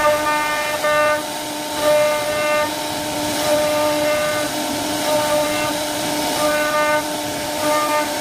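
CNC wood-carving router cutting a door panel: the spindle's steady whine over the hiss of the bit in the wood, with a set of higher tones that switch on and off every second or so as the machine moves.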